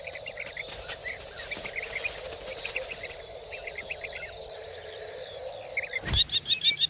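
Small birds chirping over a steady hum, with an outdoor field ambience. About six seconds in comes a sudden thud and rush as a common kestrel dust-bathing throws up sand. A fast run of loud, high, repeated bird calls follows, about five a second.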